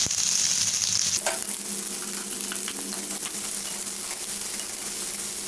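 Chopped onions sizzling in hot oil with fennel and mustard seeds in a nonstick kadhai, stirred with a spatula with light scrapes against the pan. The sizzle gets brighter about a second in.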